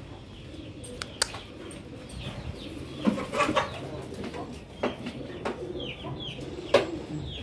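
Chickens clucking in a poultry shed, with scattered short high chirps and a few sharp knocks.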